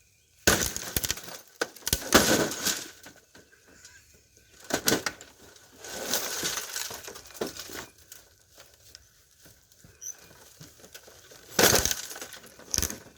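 Sledgehammer blows on the back of a plasma TV, several hard strikes with glass breaking and crunching after them.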